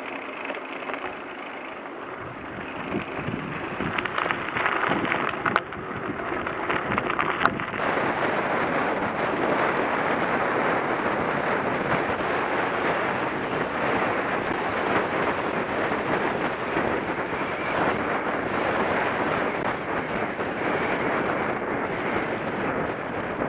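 Mountain bike rolling on a gravel road: a steady crunch and rattle of tyres on loose gravel, mixed with wind noise on the microphone. It grows louder over the first several seconds as the bike picks up speed, then holds steady.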